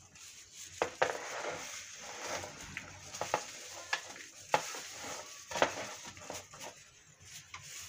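Chopped spring onions being tipped and scraped from a small glass dish into a plastic bowl of mashed potatoes by a plastic-gloved hand: soft rustling and squishing with scattered light clicks and taps.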